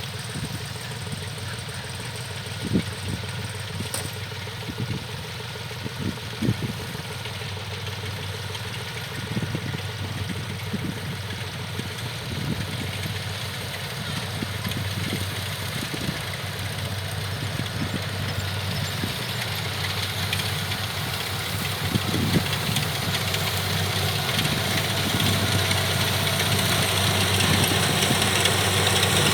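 Kubota DC70 rice combine harvesters' diesel engines running steadily while harvesting, with a few sharp knocks from the machinery. The sound grows gradually louder through the second half.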